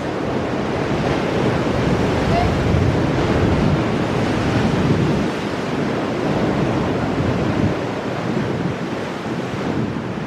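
Ocean waves surging and crashing against shoreline rocks, the rushing swelling and easing twice, with wind buffeting the microphone.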